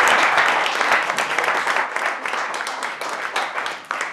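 A small group applauding, dense clapping at first that fades and thins out to scattered claps in the second half.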